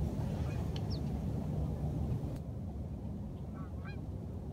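Geese honking faintly a few times about three and a half seconds in, over a steady low rumble.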